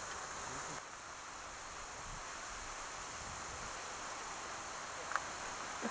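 Steady outdoor background hiss with no distinct events, and a single faint click about five seconds in.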